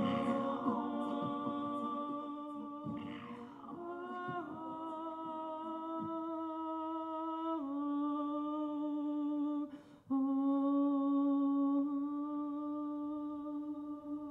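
A man's voice humming long held notes into a microphone, stepping down in pitch once partway through and breaking off briefly for breath about ten seconds in. A few light taps sound in the first few seconds.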